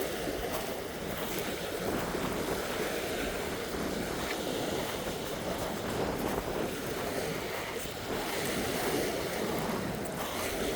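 Waves washing on a rocky shore, a steady rush of surf, with wind buffeting the microphone.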